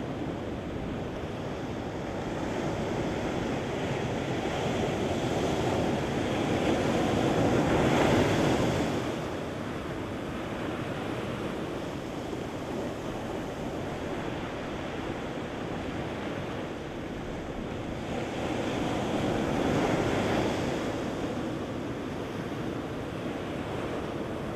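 Ocean waves breaking and washing up a sandy beach over a steady wash of surf. Two surges build and fade, the louder about a third of the way in and another near the end.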